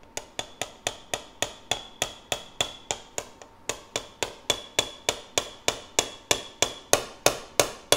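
A small metal surgical mallet taps the end of an arthroscopic instrument to drive it into the foam glenoid of a shoulder model, making a pilot hole for a suture anchor. It gives a steady run of light metallic taps, about four a second, each with a brief ring, growing louder toward the end.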